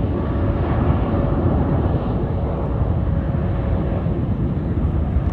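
Boeing 777X's GE9X turbofan engines running, a steady heavy rumble with a faint whine on top.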